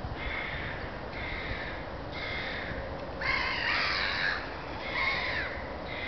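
Black-headed gulls calling: short harsh cries about once a second, with a louder, longer stretch of overlapping calls a little past the middle.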